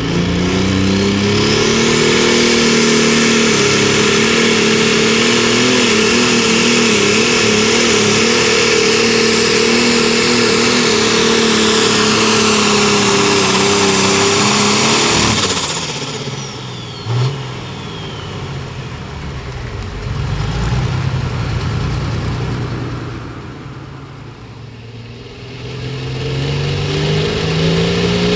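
Limited pro stock pulling tractor's turbocharged diesel engine revving up and held at full throttle during a pull, then dropping away abruptly about fifteen seconds in as the pull ends. Near the end another pulling tractor's engine revs up, rising in pitch.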